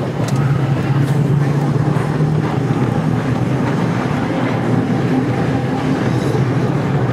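Vintage tram running along its track, heard from the open top deck: a steady low hum with the rumble of the wheels on the rails.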